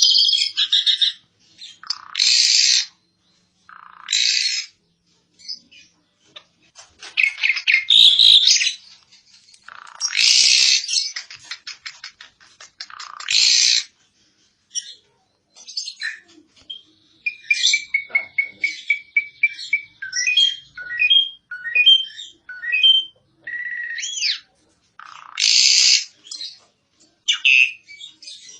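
Asian pied starling (jalak suren) singing: loud harsh chattering bursts every couple of seconds, with a quick run of short clear whistled notes a little past the middle.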